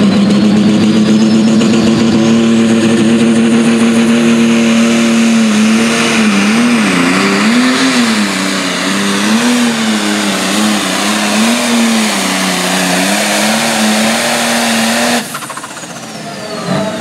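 John Deere 4430 pulling tractor's diesel engine at full throttle dragging a weight-transfer sled. It holds a steady high note for about five seconds, then the engine speed swings up and down under the sled's load, until the throttle is cut about fifteen seconds in and a high whine falls away.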